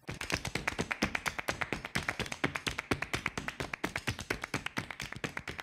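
Fast, even run of light percussive taps, about nine a second, starting abruptly: the tapping rhythm of an outro jingle.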